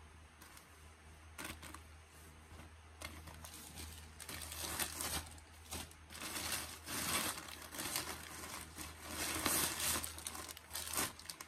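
Clear plastic packaging bag crinkling and rustling as it is handled, in irregular spells that get louder and busier from about four seconds in.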